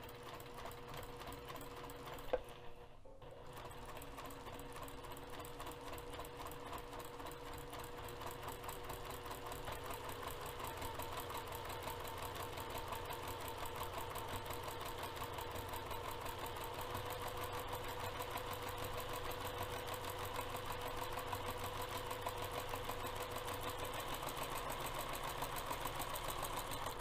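Domestic sewing machine fitted with a walking foot, running at a steady fast stitch as it machine-quilts straight lines through fabric and foam interfacing. It stops briefly with a click about three seconds in, then runs on, growing slightly louder.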